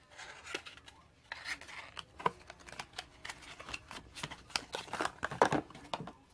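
Packaging being handled and opened by hand: scraping, rustling and a quick run of sharp clicks and snaps, in irregular spurts.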